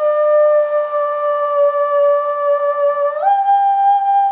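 A steady held note, sounded into a PVC pipe to vibrate a sugar-covered rubber membrane for a cymatics pattern, jumps to a higher note about three seconds in.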